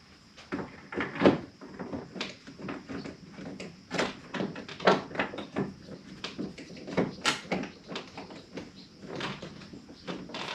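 Irregular knocks and clicks of hard parts being handled and fitted as a pickup truck's door interior is put back together, some sharper and louder than others.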